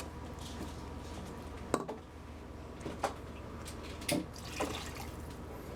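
Flour-and-water gravy heating in a skillet on the stove, with a few separate bubbling pops over a steady low hum.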